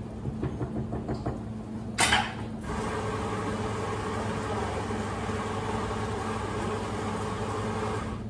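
Espresso machine steam wand: a short loud burst about two seconds in, then a steady hiss of milk being steamed in a stainless jug, which stops near the end. A steady low hum runs underneath.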